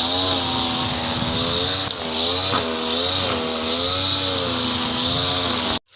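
A small petrol engine running steadily, its pitch wavering slightly up and down, then cutting off abruptly near the end.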